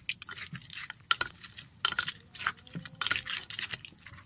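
Spoon and pestle knocking and scraping against a mortar while tossing shredded green papaya salad: a quick, irregular series of clicks and knocks.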